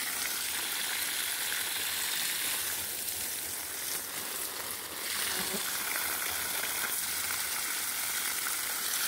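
Water from a garden hose spraying onto lime-tree leaves and damp soil: a steady hiss that eases slightly about four seconds in.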